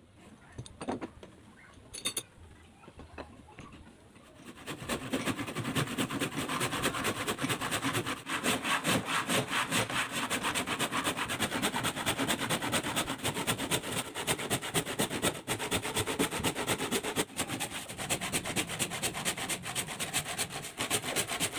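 A hand saw cutting pallet wood by hand with quick, even back-and-forth strokes, starting about four seconds in after a few light knocks.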